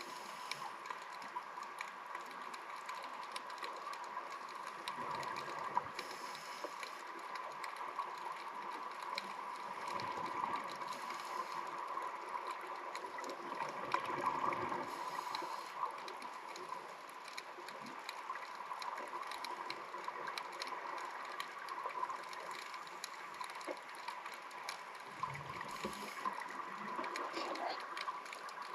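Underwater audio through a camera housing: a steady hiss and hum with faint scattered clicks. Every few seconds a low, gurgling rush comes and goes, the exhaled bubbles from a diver's scuba regulator.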